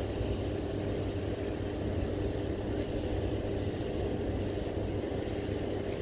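Steady low rumble from a hydroelectric dam and its rushing outflow, with a constant hum running through it.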